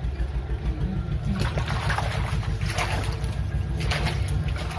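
Water splashing and trickling in short, irregular swishes as a toy is washed, over a steady low rumble.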